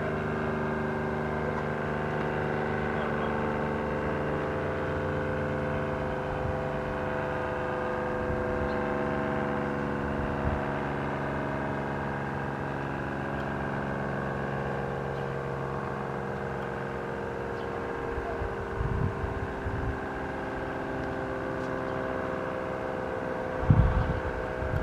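Steady engine hum holding one pitch, with a few low thumps near the end.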